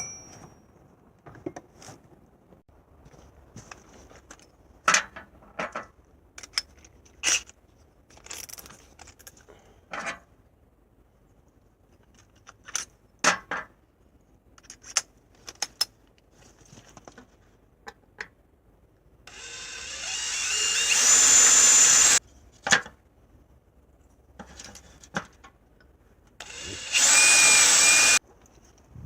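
Power drill running in two bursts of two to three seconds, the first one building up over about a second, while the fridge is being fastened in place. Before the drill, scattered clicks and knocks of tools and parts being handled.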